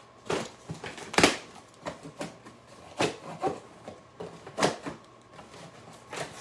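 Packaging being handled and opened by hand: a series of separate short rustles and scrapes, the loudest about a second in.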